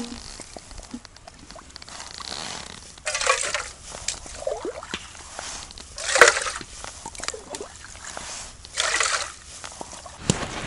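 Water scooped with a mug from a hole in lake ice and poured into a metal cooking pot, several separate pours and splashes a second or two apart.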